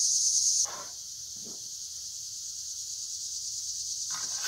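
Steady high-pitched insect chorus that drops sharply in loudness under a second in and carries on more quietly. Near the end come light scrapes of a metal utensil against an aluminum frying pan as a hoe cake is worked loose to flip it.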